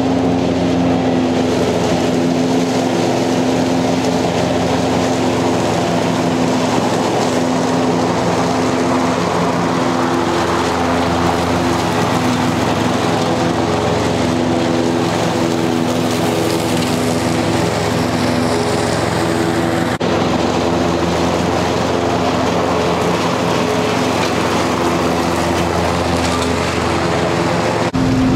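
Cub Cadet Ultima ZTX zero-turn mower with a 60-inch deck running steadily while mowing, a constant engine hum. The sound shifts abruptly near the end.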